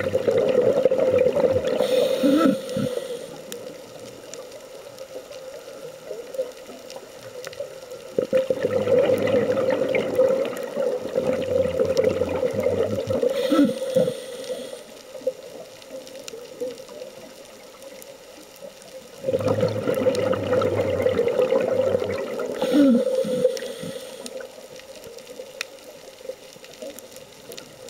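Scuba regulator breathing heard underwater: three long spells of bubbling exhalation about ten seconds apart, each ending in a short low gurgle, with quieter stretches between them.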